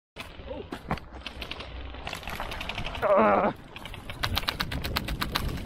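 Rapid airsoft gunfire: strings of sharp clicking shots, several a second, thickest in the last couple of seconds. About three seconds in, a person gives a loud shout lasting about half a second.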